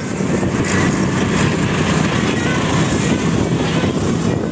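Auto-rickshaw engine running steadily, heard from inside the rickshaw's cab while it drives.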